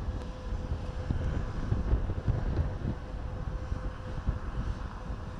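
Wind buffeting an outdoor microphone: an uneven low rumble that surges in gusts, over a faint steady hum.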